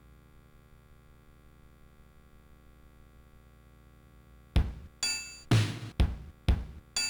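Amiga 500's built-in sound output playing a sampled drum-machine beat. Kick- and snare-like hits come about twice a second, starting about four and a half seconds in; before that there is only a faint steady hum.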